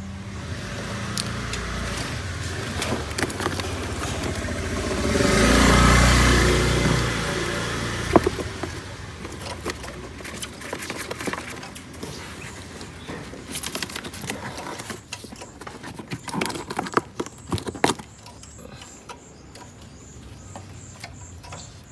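A motor vehicle passes, its engine sound swelling and fading about five to seven seconds in, amid scattered clicks and knocks. Faint high repeated chirps come in near the end.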